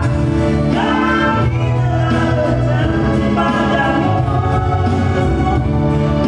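Nasyid song: voices singing held, melodic lines over a steady instrumental backing.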